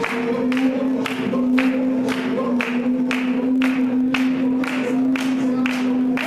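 A group of voices singing one long held note over a steady beat of hand claps and drum strokes, about two a second.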